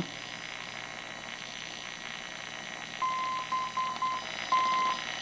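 E.H. Scott RCH Navy tube receiver's speaker giving a steady band hiss, then about three seconds in a Morse code identification as a keyed tone of about 1 kHz: a dash, a few quick dots and a final longer dash. The station sending its ID in Morse code is taken for a beacon.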